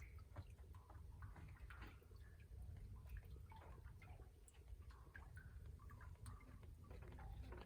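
Near silence: faint, scattered small ticks and drips, like lake water lapping at a dock.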